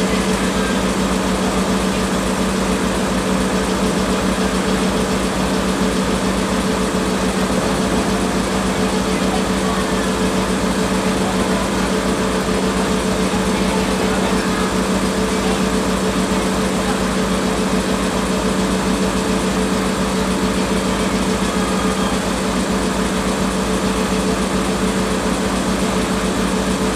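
DE10 diesel-hydraulic locomotive's V12 diesel engine idling at a standstill: a steady, unchanging hum with a higher steady drone above it.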